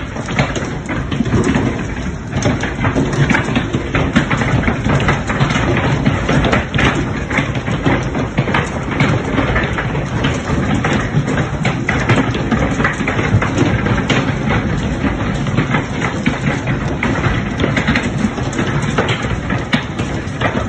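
Large hailstones pelting down in a heavy hailstorm: a loud, dense, unbroken clatter of countless separate impacts over a rain-like rush.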